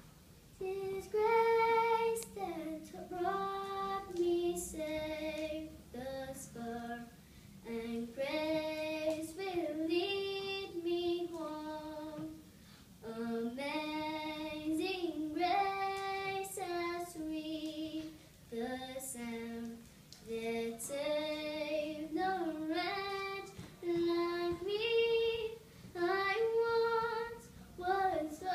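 A young girl singing solo, unaccompanied, in phrases with short pauses for breath.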